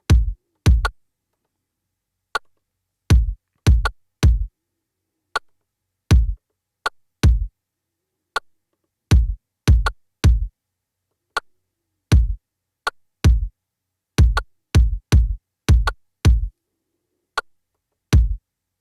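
Electronic kick drum sample from a drum machine, played as deep, short thumps in a loose, uneven pattern, with thin sharp ticks keeping a steady pulse between them.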